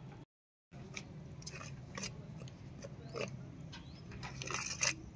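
Hand working water into flour in a steel plate to make bhakri dough: irregular faint crunching, scraping and tapping of fingers and flour against the metal, a little busier near the end.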